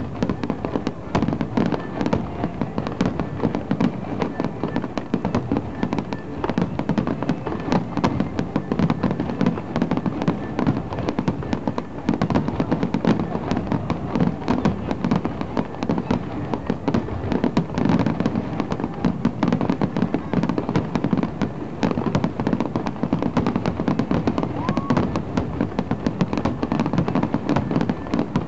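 Fireworks display: many aerial shells bursting in quick, overlapping succession, a dense run of bangs with no pause.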